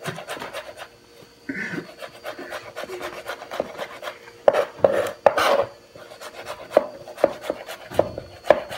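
Cleaver chopping fine leaf thyme on a cutting board: a quick run of light blade taps, with louder knocks in the second half.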